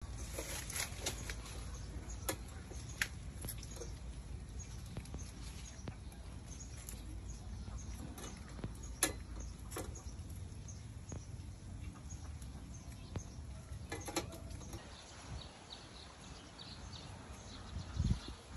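Metal tongs clicking and tapping against a wire grill rack as grilled whole fish are lifted off, in sharp scattered clicks over a low steady background.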